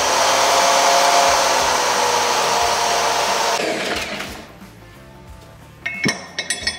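Corded electric drill spinning a Scotch-Brite abrasive pad inside the bore of a painted steel nose gear fork, sanding the paint out so the bushing will fit; the motor runs at a steady whine, then winds down about four seconds in. Near the end, a few metal clinks as the bushing is test-fitted into the bore.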